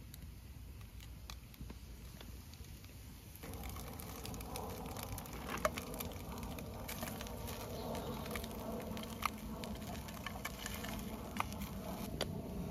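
Food sizzling in a small stainless steel pot over a wood fire, starting about three and a half seconds in as cooked rice is tipped in and stirred, with scattered sharp clicks.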